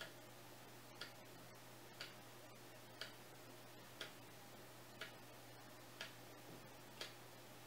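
Analog wall clock ticking softly, one tick a second, over a faint steady low hum.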